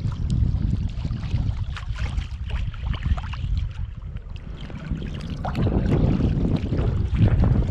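Wind buffeting the microphone, a steady low rumble, with faint scattered rustles and clicks.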